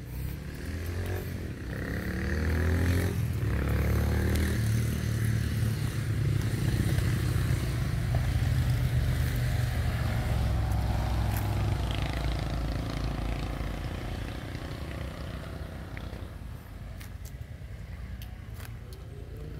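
A motor vehicle's engine running, rising in pitch near the start, holding loud for several seconds, then fading away.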